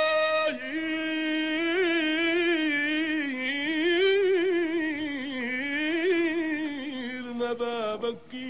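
A solo voice singing a long, drawn-out vowel in a Levantine Arabic song. It holds one note briefly, then winds through a wavering, ornamented melodic line, and sinks lower near the end.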